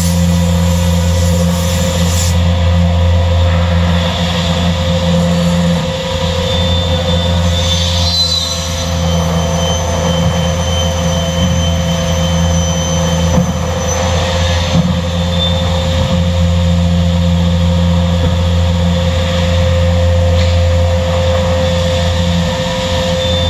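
WARSM-DP5000L computer-controlled panel beam saw running in automatic mode, cutting 18 mm particleboard. It gives a loud, steady machine hum with a deep drone and a constant higher tone, and a faint whine comes and goes through the middle.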